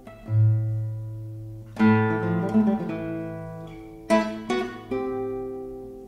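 Acoustic guitar music playing back from cassette tape on a Denon DR-M2 three-head tape deck. Plucked notes and chords ring out and fade, with a low note about a third of a second in and fresh chords near two and four seconds in.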